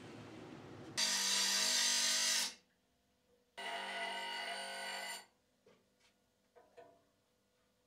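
Bench grinder's stone wheel grinding a steel meat-grinder blade: two stretches of harsh grinding with a high ringing whine, each about a second and a half long, that stop abruptly. A few light clicks follow near the end.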